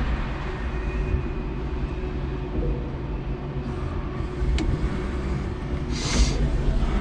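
5-ton electric forklift truck running, heard from inside its cab as a steady low rumble, with a sharp click about four and a half seconds in and a short hiss about six seconds in.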